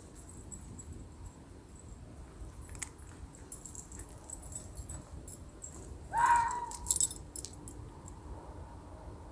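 One short animal call about six seconds in, rising in pitch and then held briefly, over faint hiss and scattered high clicking. The uploader thinks it could be a fox, coyote or wolf.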